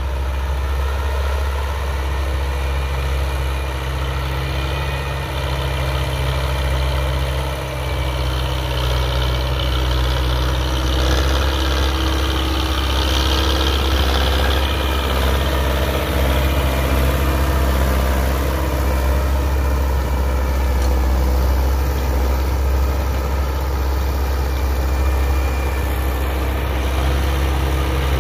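Belarus 925 tractor's diesel engine running steadily under load while its rear-mounted rotary tiller churns dry soil. It gets a little louder from about eleven seconds in as the tractor comes close.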